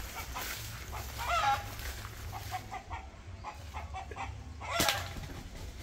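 Chickens clucking in short calls, with a drawn-out wavering call about a second and a half in, and a short sharp sound near the end.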